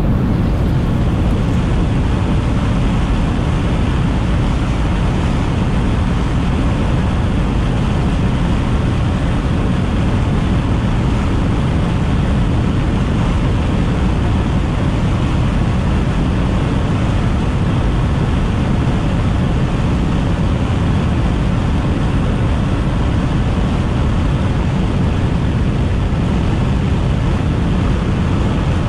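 Steady road and wind noise inside the cabin of a car driving at speed, with no distinct events.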